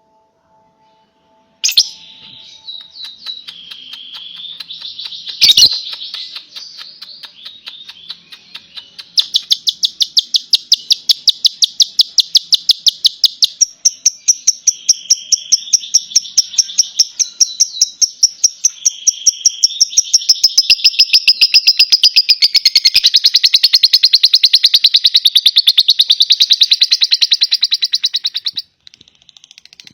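Lovebird in its long 'ngekek' chatter, with ciblek (bar-winged prinia) notes in its song. Scattered high chirps give way, about nine seconds in, to a fast, even run of sharp shrill notes that lasts nearly twenty seconds and stops abruptly near the end. A single sharp click comes about five seconds in.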